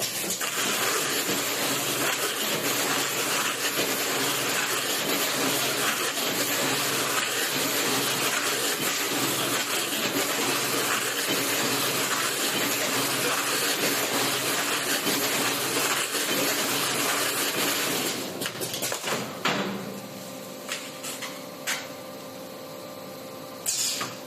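Automatic ice-box taping machine for styrofoam boxes running with a loud, steady motor and belt noise that stops about 19 seconds in, leaving a quieter hum with a few clicks and one brief loud noise near the end.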